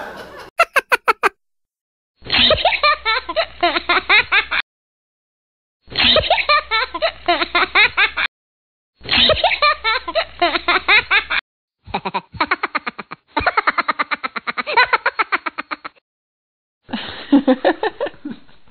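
Canned laughter sound effect: several runs of rapid, giggling laughter, each one to four seconds long, separated by dead silence.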